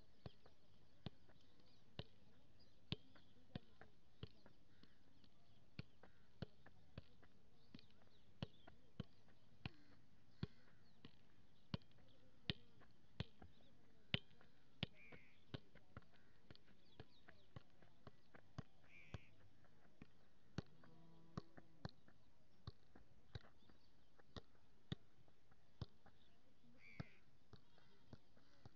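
A football being juggled on foot and knee: a steady run of short, light thuds, roughly three touches every two seconds, some louder than others, with a brief break about five seconds in.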